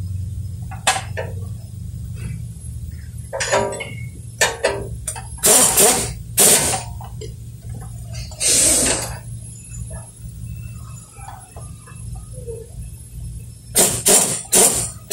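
Pneumatic ratchet run in short, sharp bursts, about eight times, as bolts are worked on the underside of a transmission, over a steady low hum.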